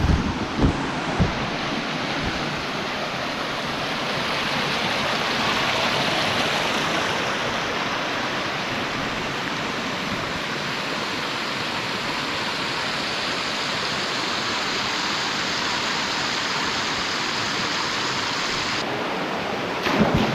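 Mountain valley stream rushing over rocks in a steady wash of water, with a few short thumps in the first second or so and again near the end.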